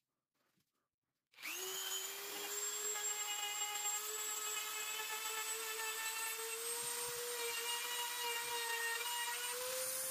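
Handheld rotary tool with a small burr bit running at high speed as it carves the beechwood knife handle: a steady high whine that starts about a second and a half in, creeps slightly up in pitch, and stops abruptly near the end.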